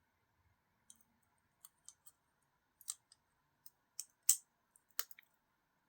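Small metal knife parts clicking and tapping as they are handled and fitted together. The light clicks come irregularly, and the loudest fall just after four seconds in and at five seconds.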